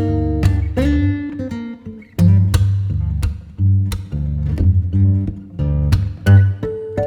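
Background music: acoustic guitar plucked and strummed over a steady bass line.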